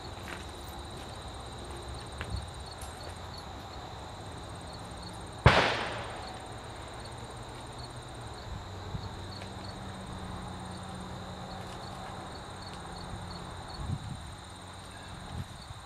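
Insects chirping steadily in the background, with a single sharp bang about five and a half seconds in that rings out briefly.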